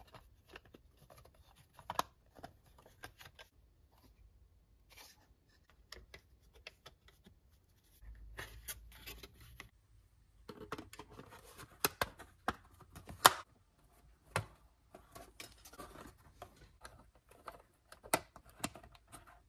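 Molded plastic RC crawler body panels being handled and pressed together by hand: scattered light clicks and scrapes, with a run of sharper clicks about eleven to thirteen seconds in.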